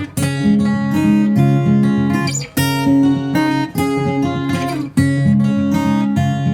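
Acoustic guitar music, strummed chords changing every second or so.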